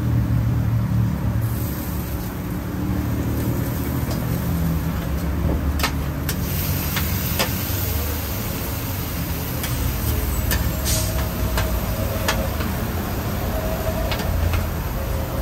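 Street traffic, with the low rumble of large vehicles such as buses and trucks running by. A short hiss comes about eleven seconds in, and sharp clicks are scattered through the middle.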